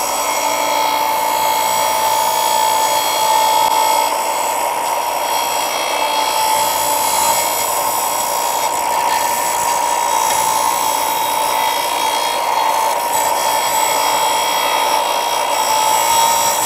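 Eastwood 4 x 36 in belt / 6 in disc bench sander grinding the rough chop-saw-cut edge of a piece of metal on its 80-grit disc, deburring and beveling it. A steady grinding hiss runs over the motor's steady whine.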